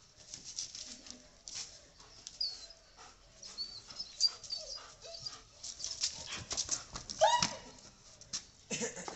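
A German shepherd and a black street dog at play: soft whimpering, one short high-pitched yelp about seven seconds in, and scattered clicks of claws on paving.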